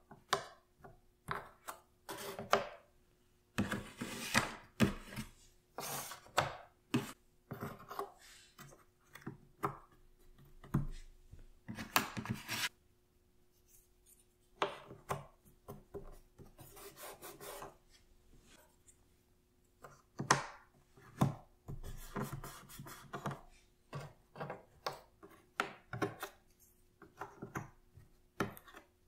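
Cardboard jigsaw puzzle pieces being handled: fingers slide and rub pieces across the board and press them into place, giving irregular soft clicks and scrapes with short pauses.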